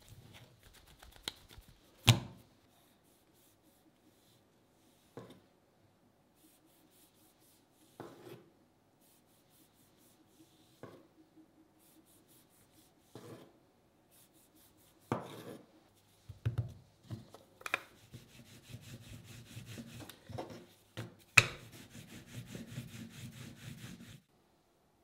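Dough being worked on a wooden tabletop: a kitchen knife chopping through dough into the wood in single knocks a few seconds apart. Then a rolling pin rolling the dough out with a continuous rubbing, which stops suddenly near the end.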